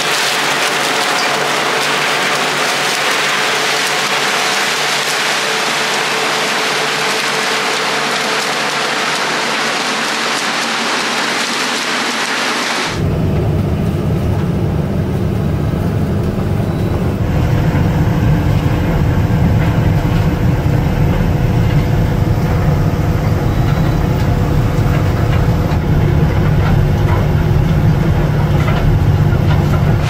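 Lockwood potato harvester running close by, its conveyor webs carrying crop in a loud, even noise with a faint steady hum. About thirteen seconds in it gives way abruptly to the low, steady drone of a Fendt Vario 828 tractor heard from inside the cab, which grows louder a few seconds later.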